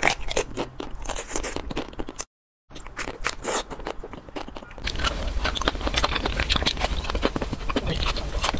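Close-miked eating sounds of ice cream bars: irregular crunching bites and chewing, broken by a brief silence about two seconds in, then denser and steadier crunching from about five seconds in.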